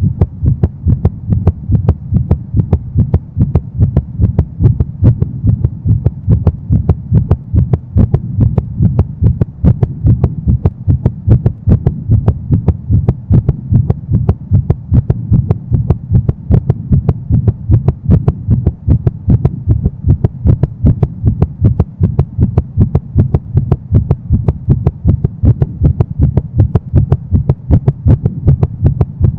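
A racing human heartbeat, as after sprinting: a fast, steady train of deep thumps that keeps an even rhythm.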